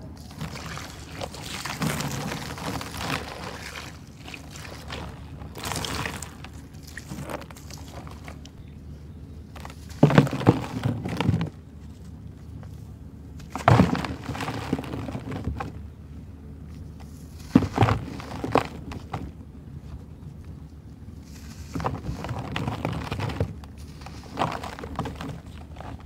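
Sand-cement chunks being crumbled by hand in a plastic bucket: gritty crushing and powdery grains pouring from the hand, in separate handfuls, with a few sharp knocks as chunks hit one another.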